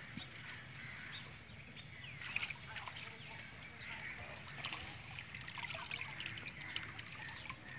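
Water trickling and dripping as a woven bamboo box fish trap is pulled up out of shallow water, with small irregular splashes and drips.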